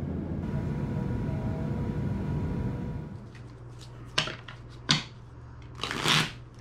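Steady low rumble of airliner cabin noise in flight that cuts off about three seconds in. Then a deck of playing cards is handled: two sharp clicks as the split stacks are knocked together, and near the end a short riffle shuffle.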